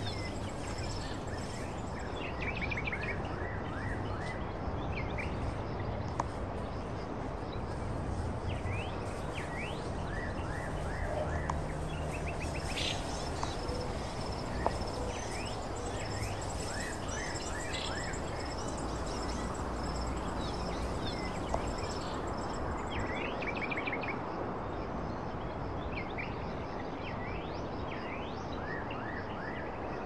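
Steady background noise with small birds chirping in short repeated bursts now and then, and a faint high steady tone like insects buzzing.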